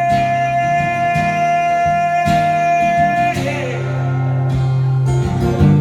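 Live country band music with acoustic guitar. A sung note is held for about the first three seconds, then the band plays on.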